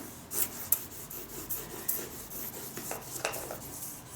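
Crayon scribbling on paper: irregular scratchy strokes that come and go.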